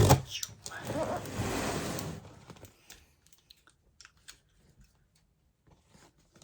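A cardboard shipping box being cut open with a blade. A loud scrape right at the start is followed by about two seconds of scratchy slicing and tearing through the packing tape, then scattered light clicks and rustles as the flaps and contents are handled.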